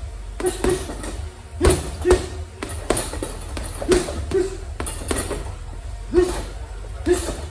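Gloved punches landing on a heavy punching bag, about a dozen hits, often in quick one-two pairs, each with a short ringing note after the thud.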